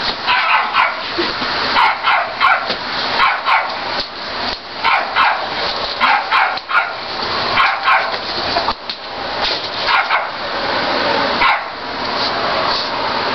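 A dog barking repeatedly in short barks, often two in quick succession, with a pause of a couple of seconds about two-thirds of the way through, over a steady hiss.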